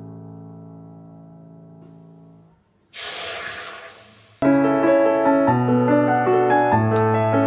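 Background piano music fades out on a held chord. Then water is poured from a steel saucepan into a steel wok and splashes for about a second and a half, starting suddenly and tailing off. The piano music comes back louder near the end.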